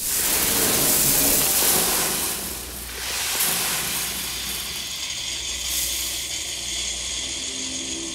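Green coffee beans pouring out of a jute sack onto a heap: a dense rushing rattle of beans, loudest for the first three seconds, then continuing more quietly.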